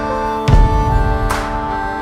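Background music: sustained chords over a slow beat, with a deep drum hit about half a second in and a higher cymbal-like hit near the end.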